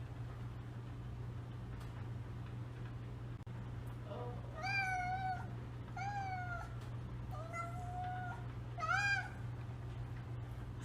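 A domestic cat meowing four times, each call short and a little under a second apart, over a steady low hum.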